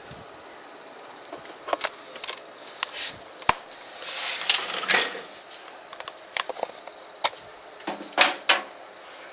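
A power cable being handled and plugged into the back of a desktop PC: a series of sharp plastic clicks and knocks, with a longer rustling scrape about four seconds in.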